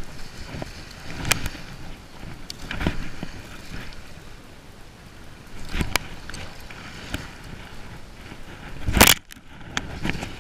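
Handling sounds from unhooking a skate with pliers: scattered clicks and rustles of hands, tool and clothing close to the microphone, with one loud bump near the end, over a steady background hiss.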